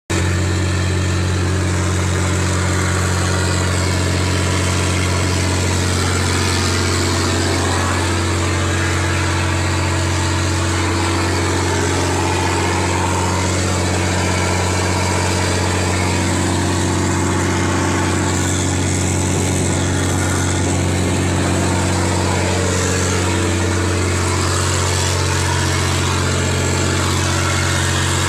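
A boat engine running at a steady pitch as the boat cruises, with the rush of water and wind along the hull.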